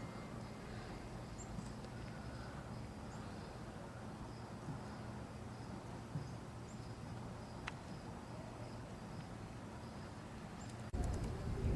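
Faint outdoor ambience: a steady low rumble with faint insect chirring and a couple of light clicks. Just before the end a louder low rumble comes in suddenly.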